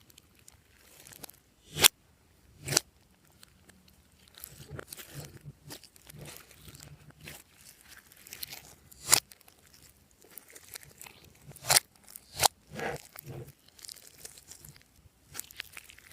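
Hands squishing and stretching glossy slime with sticky crackling, broken by several sharp pops.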